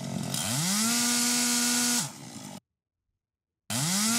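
Gasoline chainsaw revved up to full throttle and held, then about two seconds in the engine note drops sharply as the saw kicks back and its chain brake clicks on, stopping the chain. After a second of silence the same run-up to full throttle starts again near the end.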